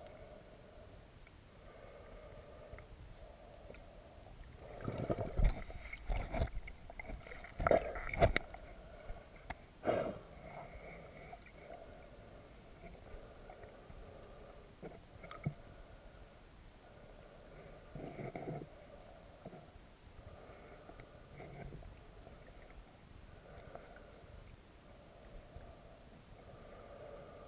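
Muffled underwater wash of flowing river water heard through a submerged camera housing, swelling and fading every couple of seconds. A cluster of sharp knocks and thumps comes between about five and ten seconds in, with a smaller one near eighteen seconds.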